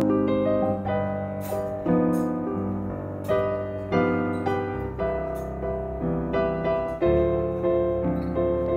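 Background piano music: gentle chords and single notes, each struck and fading away, with a new chord about once a second.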